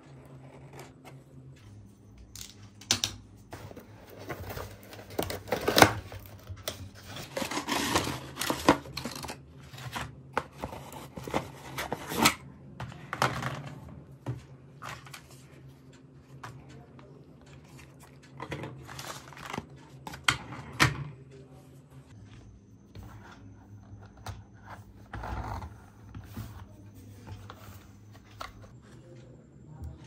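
Cardboard box and plastic packaging of a toy remote-control car being opened and unpacked by hand: tearing, crinkling and scraping handling noises, busy through most of the first twenty seconds, then sparser.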